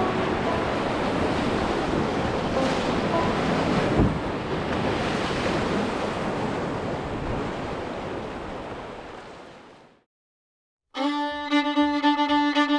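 Rushing whitewater of river rapids, with one sharp knock about four seconds in; the rush fades out near the end, and after a second of silence fiddle music begins.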